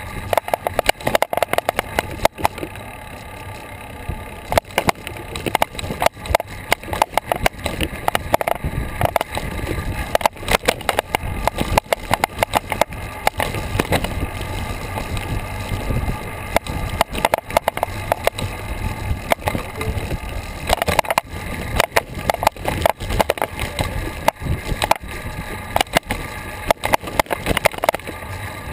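Road and wind noise on a bicycle-mounted action camera while riding at moderate speed: a steady rumble from the tyres on the pavement with frequent irregular knocks and rattles as the bike jolts over the rough road surface.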